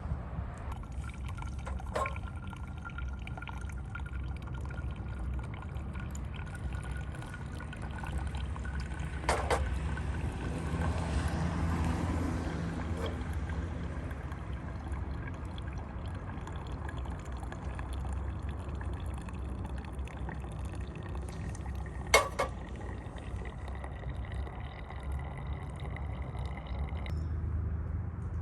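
Liquid poured steadily into a container, a faint thin tone rising slowly as it fills, over a low steady rumble. There are three sharp clinks, the loudest near the end.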